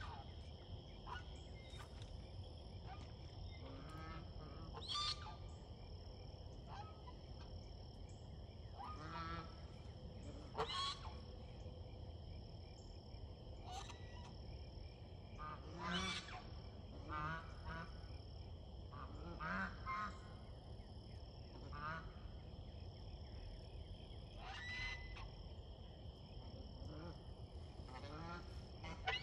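Domestic geese honking in short calls every few seconds, with the loudest calls about 5, 11 and 16 seconds in, during a fight at a nest. A faint steady high-pitched tone runs underneath throughout.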